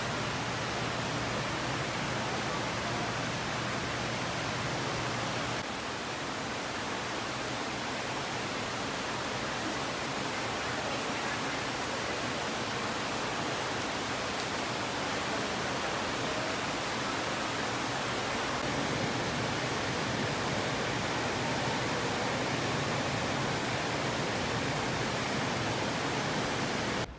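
Steady rush of falling, splashing water spraying across an indoor exhibit pool. A low hum under it stops about six seconds in.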